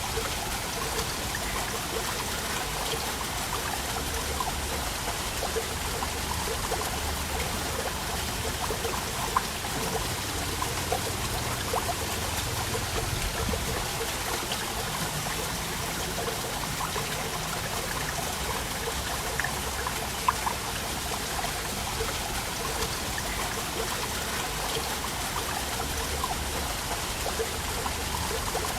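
Waterfall, a steady rush of falling water with small splashes and trickles running through it, and two brief clicks about a third and two thirds of the way through.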